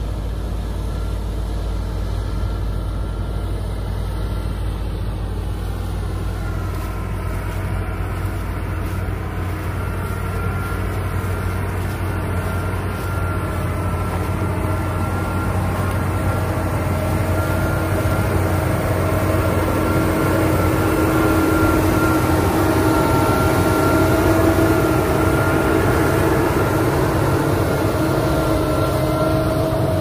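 Diesel tractor engine working steadily under load while pulling a plough through stubble, with a steady whine over the engine noise. It grows somewhat louder past the middle.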